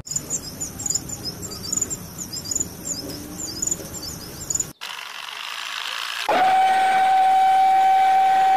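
Rapid high chirping, like small birds or insects, for the first four and a half seconds. Then it breaks off suddenly into a rising hiss, and about six seconds in a loud, steady high whine starts with a brief upward glide and holds.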